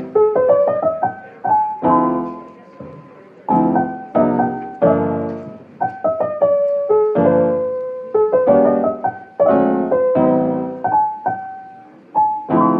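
Piano music: struck chords and short melody notes in an even rhythm, each note fading after it is played.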